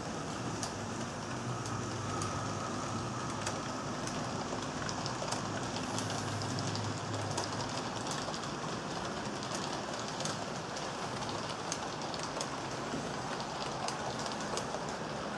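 HO-scale model passenger train running past behind a Proto 2000 EMD E8 locomotive. A low motor hum comes through in the first half while the locomotive passes. Through the rest, wheels click irregularly over the track rail joints as the coaches roll by.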